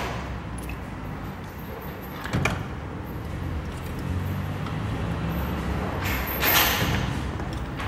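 Workshop sounds: a steady low hum, a sharp knock about two and a half seconds in, and a louder hissing scrape about six seconds in.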